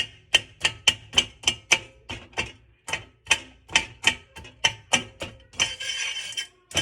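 A steady run of sharp clicks or taps, about two to three a second, with a short burst of hiss a little before the end.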